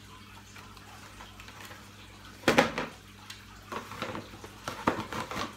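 Packaging and parts of an aquarium LED light being handled during unboxing. After a quiet start there is one loud knock about halfway through, then a scatter of lighter clicks and knocks.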